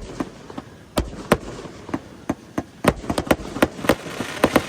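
Fireworks going off in a string of sharp bangs at irregular intervals, coming faster from about three seconds in.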